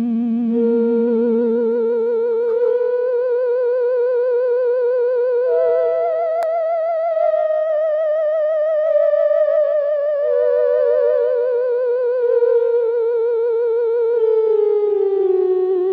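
Ghost sound effect: a single eerie, theremin-like wailing tone with a fast, wide vibrato, stepping up in pitch over the first six seconds and then gliding slowly back down.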